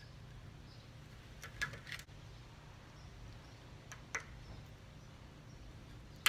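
A few faint metal clicks of a screwdriver and snap ring pliers working the retaining snap ring off a Lobro CV joint on its axle, over a low steady hum.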